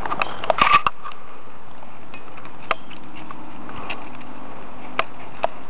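Light clicks and crunches of footsteps on a dirt path scattered with dry leaves: a quick cluster about half a second in, then a few single steps, over a steady background hiss.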